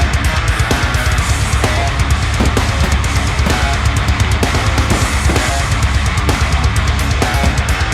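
Loud rock music with heavy drums and electric guitar, on a dense, driving beat.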